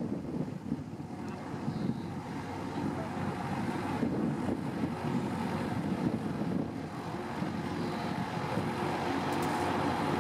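A steady engine drone that grows slowly louder, over wind and open-air background noise.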